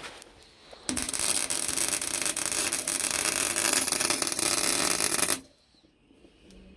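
Welding burst: an even, crackling hiss that starts abruptly about a second in, holds for about four and a half seconds, then cuts off suddenly.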